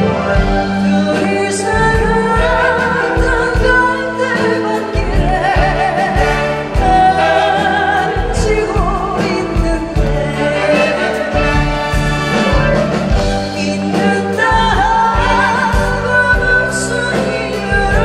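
A woman singing a slow Korean pop ballad into a microphone with wavering vibrato, over a live band with bass, drums and brass.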